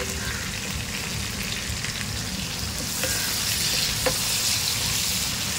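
Oil sizzling in a pan as green chillies, curry leaves, tomato and spices fry, stirred with a wooden spatula. The sizzle grows louder about three seconds in, with a couple of light knocks of the spatula against the pan.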